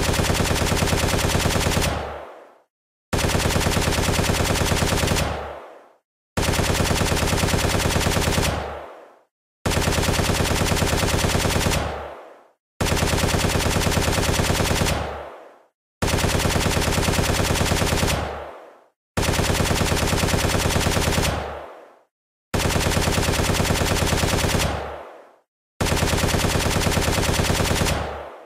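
FN SCAR-H rifle automatic-fire sound effect: nine identical bursts of rapid fire, each lasting about two and a half seconds and trailing off in a short echo, with a brief silence between bursts.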